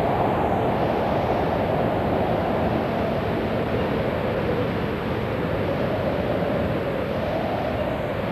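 Steady, dense rushing noise with no breaks, its tone sagging slowly in the middle and rising again near the end.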